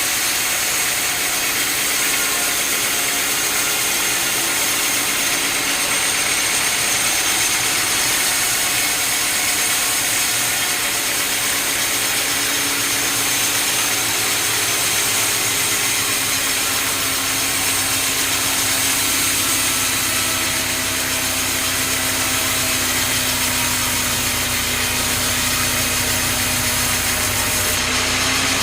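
Sawmill running: an engine-driven saw cutting wood, a steady machine noise with a hum that holds through the second half.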